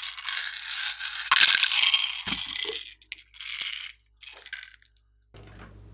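Crackling and rattling of a hard plastic container being handled: a dense stretch for about three seconds, then a few shorter bursts and clicks.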